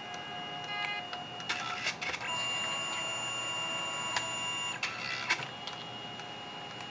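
Canon Selphy CP510 dye-sublimation photo printer running between colour passes, its motors and gears drawing the paper back inside with a steady whine. A louder motor run sits in the middle, bracketed by bursts of clicking from the mechanism, first about a second and a half in and again near five seconds.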